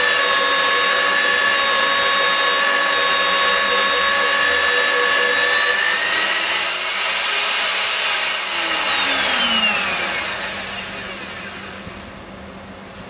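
Nitto WA-5000 magnetic drill's electric motor running steadily with a whine. About six seconds in the whine rises in pitch, then it falls away and the sound dies down as the motor winds down.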